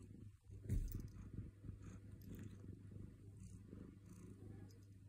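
A tabby cat purring faintly and steadily, with one brief soft thump about a second in.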